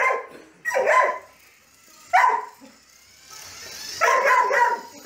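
A dog barking excitedly in play while chasing a toy, with three short barks about a second and a half apart.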